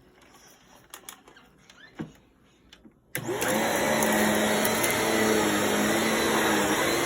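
A few faint clicks and knocks, then about three seconds in a corded vacuum cleaner switches on: its motor whines up to speed and then runs steadily with a loud rush of air.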